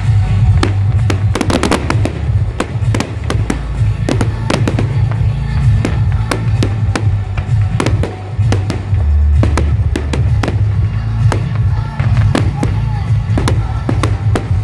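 Fireworks going off in quick succession, sharp bangs with a dense run of crackling about a second or two in, over loud music with a strong bass line.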